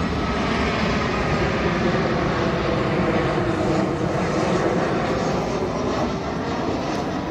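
Aeroplane flying past, its engines giving a steady roar that eases slightly near the end.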